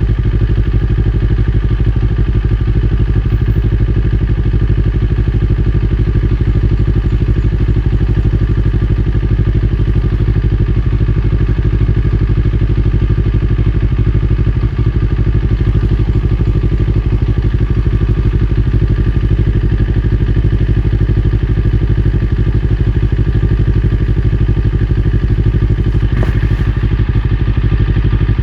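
CFMOTO NK400 parallel-twin engine running through an Akrapovic full exhaust system, holding a steady engine speed with no big revs.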